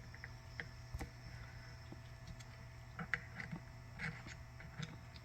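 Faint, scattered clicks and light knocks of hands twisting a rubber lower radiator hose into position under a car, over a steady low hum.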